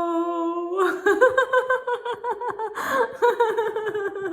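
A woman's drawn-out 'hooo' on one steady pitch ends just under a second in and breaks into fast, continuous laughter, with a sharp breath about three seconds in. This is deliberate laughter-yoga laughing, the 'ha, ha, ha, ho' exercise.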